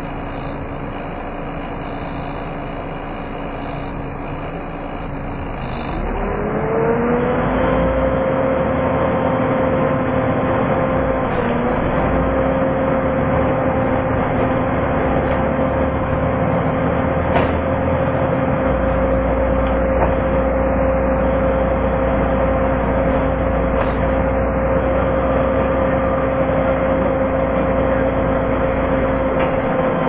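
Volvo B7TL bus's engine cooling fan 'hoovering', heard inside the bus. About six seconds in, a vacuum-cleaner-like whine rises over the engine and road noise, then holds at one steady pitch and eases down near the end.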